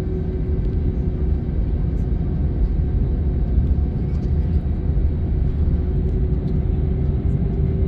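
Cabin noise inside an Airbus A321 taxiing along the runway: a steady low rumble from the wheels and airframe, with a steady hum from its IAE V2500 engines at low taxi power.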